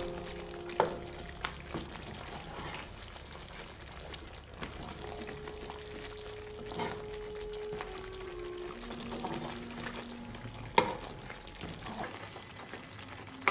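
Metal spatula stirring a thick, simmering curry in a kadai, with scattered clicks and knocks against the pan, the loudest about eleven seconds in, over a faint steady simmer.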